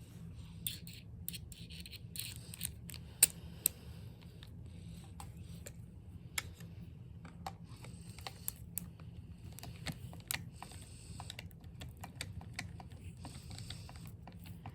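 Irregular light clicks and taps of hard plastic hair-dryer parts being handled and worked loose during disassembly, a couple of sharper knocks a little after three seconds, over a faint steady low hum.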